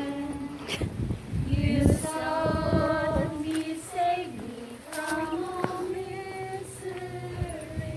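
Music: a woman singing a slow melody with long held notes, with a few sharp knocks now and then.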